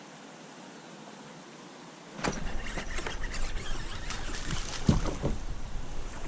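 A faint steady hiss, then about two seconds in a busy run of clicks, knocks and rustling over a low rumble, like gear being handled close to the microphone.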